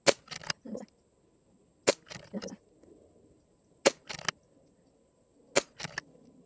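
Brocock Sniper XR pre-charged pneumatic air rifle firing four .22 pellet shots, about two seconds apart. Each sharp shot is followed within half a second by a couple of softer clicks.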